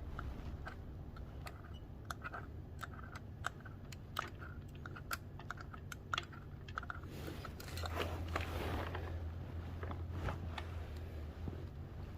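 Irregular light clicks and taps of metal parts and hand tools being handled while a motorcycle footpeg bracket is positioned for fitting, over a steady low hum that grows louder about eight seconds in, with a brief rustle.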